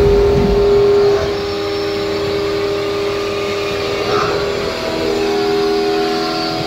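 Weida VM 850 vertical machining center milling a metal part, its spindle turning at about 2400 rpm: steady machining noise with a strong humming tone from the cutter and spindle. The tone fades about a second in as the cut changes and returns strongly near the end.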